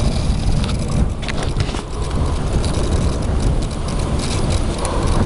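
Wind buffeting the microphone as a steady low rumble, with a few light clicks and rattles about one to two seconds in.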